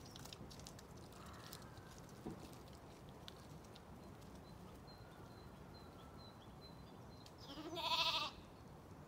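A Zwartbles sheep bleats once near the end, a single wavering call just under a second long, over a quiet background.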